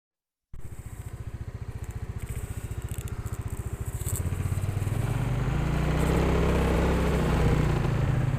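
A small engine running with a fast, even pulsing, starting about half a second in and getting louder from about halfway through.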